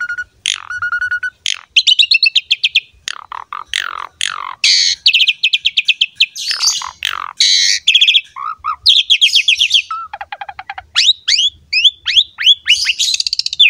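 Pied starling (jalak suren) singing a long, varied song: fast rattling trills of quick repeated notes, sharply falling whistles, and a short run of lower notes about ten seconds in.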